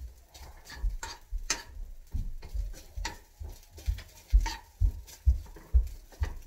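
A cooking utensil knocking and scraping in a pan as food is stirred, making an uneven series of thuds with a few sharp clicks, about two a second in the second half.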